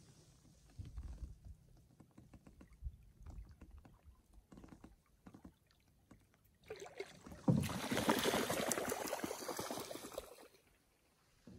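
Canoe being paddled on calm water: faint knocks and drips at first. About seven seconds in comes a loud stretch of water splashing and swishing at the paddle, lasting about three seconds.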